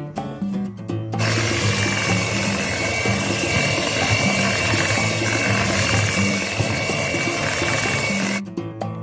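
Electric hand mixer running at a steady speed, its beaters turning in cake batter, with a steady high whine; it switches on about a second in and off near the end. Background acoustic guitar music plays underneath.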